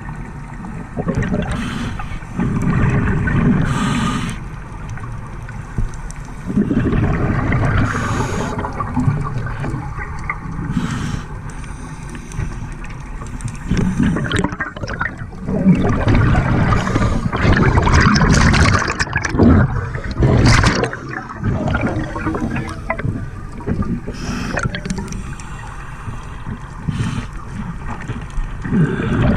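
Scuba regulator breathing: exhaled bubbles gurgling and rushing in irregular surges every few seconds.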